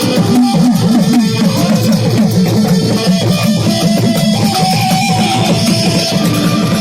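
Benjo, the Indian keyed banjo, playing a plucked melody over a rhythmic drum accompaniment.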